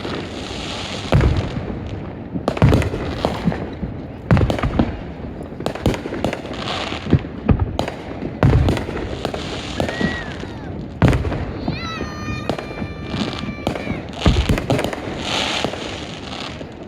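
Fireworks going off in quick succession: a dozen or so deep booms, some followed by crackling. About two-thirds of the way through, a steady whistle-like tone lasts for a couple of seconds.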